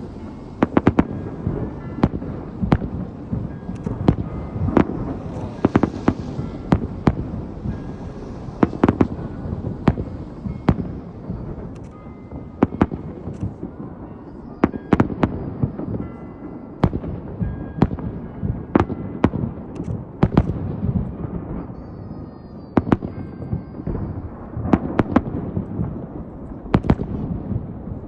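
Fireworks display: a continuous, irregular run of sharp shell bursts, about one or two a second, over a low rolling rumble and echo.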